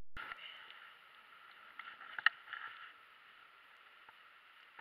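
A hand rubbing over the camera microphone at the start, then a few light clicks of handling over a steady hiss; the sharpest click comes a little after two seconds.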